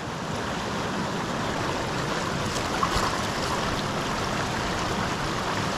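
Stream rushing over rocks in a steady flow of white water, with a single knock about three seconds in.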